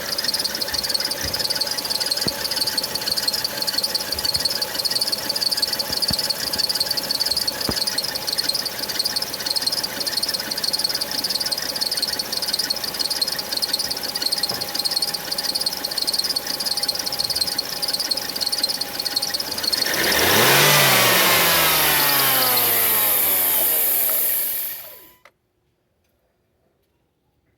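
Car engine running with a noisy accessory drive belt, a steady high squeal over the engine. About twenty seconds in the sound swells louder with pitches sliding downward for several seconds, then it cuts off abruptly.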